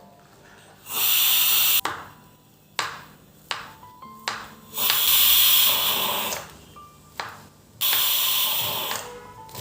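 Three loud bursts of hissing, each about a second long, with sharp clicks and knocks between them, over soft background music.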